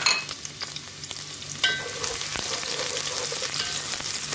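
Chopped shallots and garlic sizzling in hot oil in a stainless steel pot, stirred with a wooden spoon. There is a ringing clink about one and a half seconds in.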